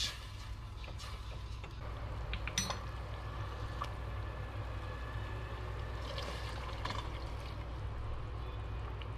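Wine and stock sauce bubbling at a simmer in a stainless steel pot, with scattered small pops and clicks over a steady low hum.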